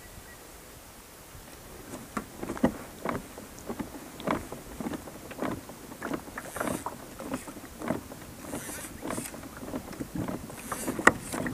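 Water slapping and splashing against a fishing kayak's hull: quiet at first, then about two seconds in a run of short slaps begins, roughly two a second, with one sharper knock near the end.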